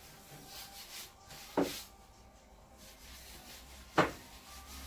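Pasta dough being kneaded by hand on a wooden board: faint rubbing, with two sharp knocks on the wood about two and a half seconds apart.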